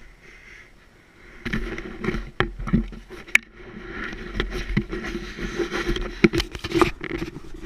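Big-block Chevy V8 on a lawnmower running steadily. It comes up about a second and a half in, with scattered sharp knocks and rattles over it.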